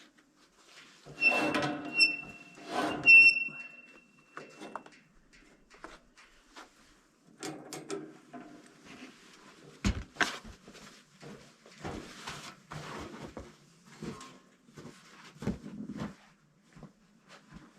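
Irregular knocking and clattering of objects being handled, with a piece of metal ringing out briefly twice about two and three seconds in and a sharp knock about ten seconds in.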